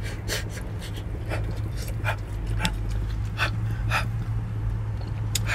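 Chewing pizza close to the microphone: a string of short mouth smacks and clicks, about two a second, over a steady low hum.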